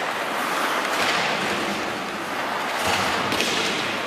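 Ice hockey play in a rink: a steady wash of noise from skates on the ice and the arena, with a couple of sharp knocks from sticks, puck and boards about three seconds in.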